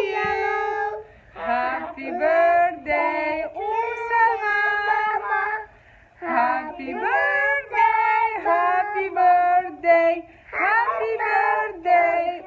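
A woman and young children singing a song together in held, sustained notes, breaking off briefly about a second in and again around six seconds in.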